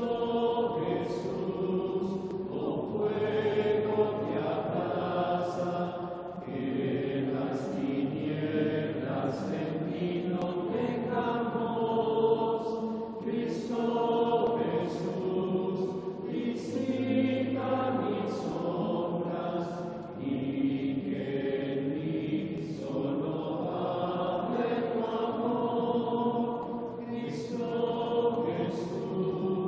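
A congregation singing a slow, repetitive Taizé chant together, holding long notes in phrases of a few seconds with brief pauses for breath.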